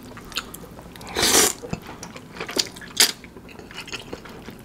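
Close-up eating of curry instant noodles: a wet slurp a little after a second in, then chewing with small wet mouth clicks and one sharp smack near three seconds.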